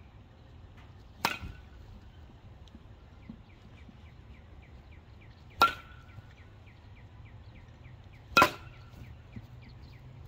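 Three sharp hits of a baseball off a 31-inch, 26-ounce DeMarini CF Zen drop 5 (2022) composite bat, each a crisp crack with a short high ring after it, the second and third louder than the first.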